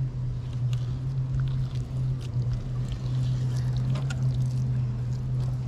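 Steady low hum of a boat engine idling, with a few faint clicks and scrapes from a fillet knife working a mackerel fillet on the cleaning board.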